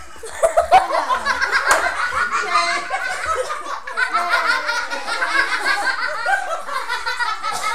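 Several people laughing together, with overlapping chatter.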